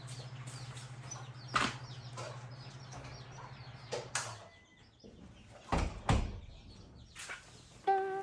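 A few sharp knocks and clicks of objects being handled, over a steady low hum that stops about four seconds in.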